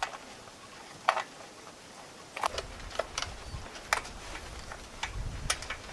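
Scattered sharp clicks and taps, about six in all, as small parts are handled and fitted by hand to a Briggs & Stratton Quantum small engine, with a low rumble at times.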